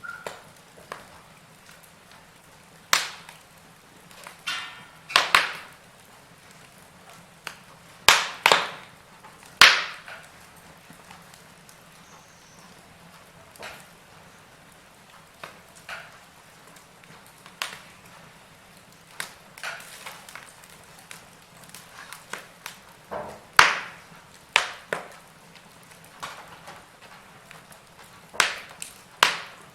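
Logs burning in a fireplace, crackling with irregular sharp pops and snaps over a faint low hiss; the loudest pops come in clusters about 8 to 10 seconds in and again near 24 seconds.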